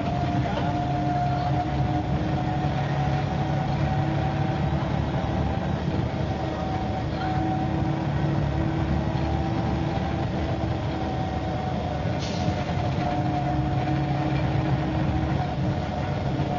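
MCW Metrobus double-decker bus under way, its engine and drivetrain running with a steady whine over a low rumble; the whine rises slightly and then eases back. A single sharp click about twelve seconds in.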